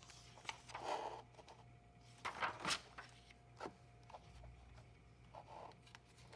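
Pages of a hardcover picture book being turned by hand: a soft paper swish about a second in, then louder rustles and taps at about two and a half seconds as the page is laid flat, and a smaller rustle later.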